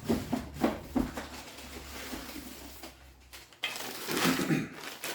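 Glass dishes clinking as they are taken out of a box, with several sharp clinks in the first second. About four seconds in there is a louder rustling, scraping noise of the dishes and their packing being handled.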